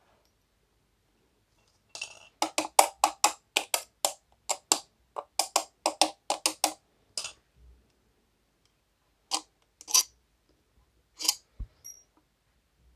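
Quick sharp clicks of a metal tool working on a screw in an exhaust fan motor's back cover, about four a second for some five seconds, then a few scattered clicks.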